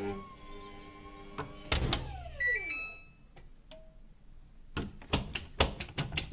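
Samsung washing machine sounds: a held electronic tone, then a tone falling in pitch and a quick rising run of beeps, followed by a series of sharp clicks and knocks in the last second and a half.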